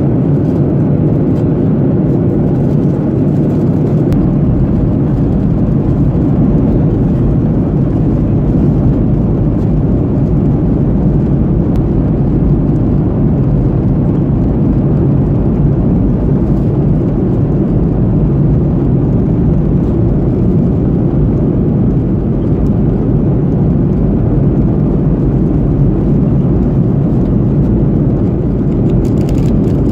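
Steady cabin noise of an airliner in flight, engine and rushing air heard from inside the cabin as an even, low roar.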